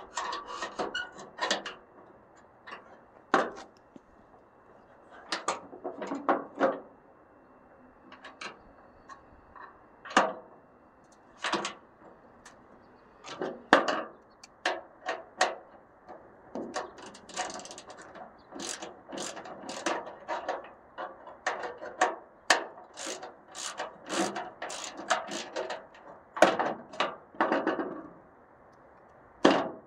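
Irregular metallic clicks, clanks and rattles of a 1999 Ford Ranger's tailgate support cable and its spring-loaded fitting being worked and forced loose by hand, the cable end jamming as it comes out.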